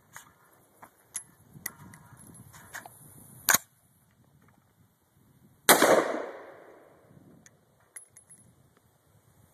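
Metallic clicks and clacks from an AR-15 carbine being handled and its action worked, with a sharp clack about three and a half seconds in. About two seconds later comes a single loud gunshot that echoes away over a second or so.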